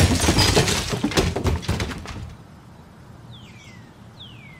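Sound effect of a wooden raft capsizing into a pond: a loud splash with crackling clatter that dies away over about two seconds. Near the end come two short falling bird chirps.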